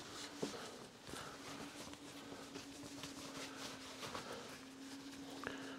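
Faint steady hum with a few light taps and clicks.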